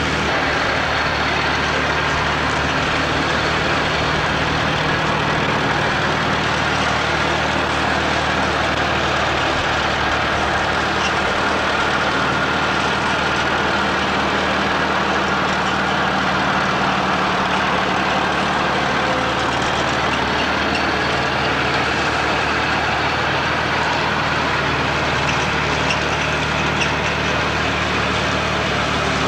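Allis-Chalmers Model C tractor's four-cylinder engine running steadily as it drives a belly-mounted mower across a lawn, an even, unbroken engine note throughout.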